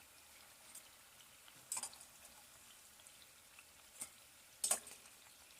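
Sliced plantains frying in a non-stick pan of oil: a faint, steady sizzle with a few sharp clinks of a utensil against the pan, the loudest about three-quarters of the way through.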